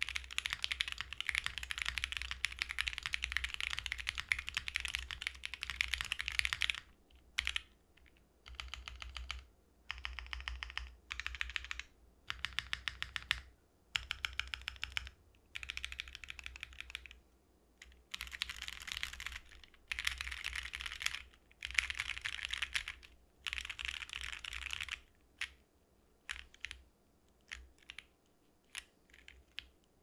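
Mechanical keyboard typing on a KBDFans Tofu 65 2.0 with Alpaca v2 linear switches, a bowl-mounted FR4 plate and GMK keycaps, a build the owner finds quite muted. Continuous typing for about the first seven seconds, then short bursts of rapid repeated presses on the modifier keys, one key at a time with pauses between, and after that bursts on the home-row keys, ending in a few single clicks.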